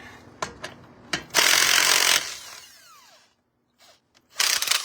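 Impact wrench running in two short bursts, loosening the truck's lug nuts: the first lasts about a second, the second is shorter near the end, and each winds down with a falling whine.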